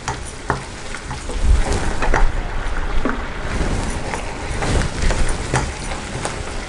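Grated ash gourd and sugar mixture bubbling and sizzling in a nonstick pan as it cooks down into halwa, with irregular scrapes and taps of a wooden spatula stirring it, over a low rumble.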